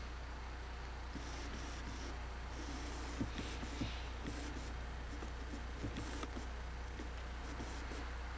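Steady low electrical hum of a home camcorder recording, with faint scratchy handling noise and a few soft knocks as the camera is held and zoomed.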